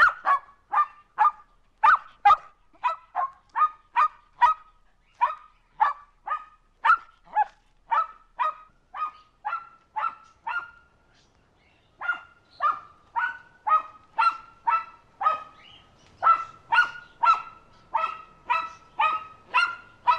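A dog barking repeatedly in short, sharp barks, about two a second, with a brief pause about eleven seconds in.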